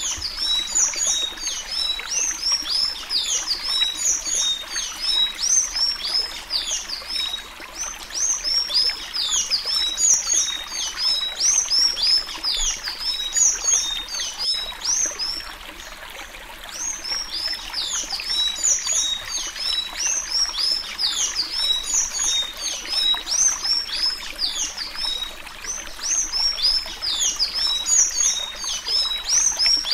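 Sanhaço-azul (blue tanager) singing the 'suí suí' song type of Alagoas: fast runs of high, squeaky, downward-sweeping notes in long phrases, with a short break about seven seconds in and a longer one about halfway. Under the song runs a steady rushing background noise.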